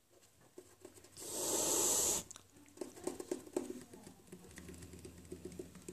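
Persian cat hissing once, a hiss of about a second that swells and cuts off sharply, followed by a run of faint short clicky sounds.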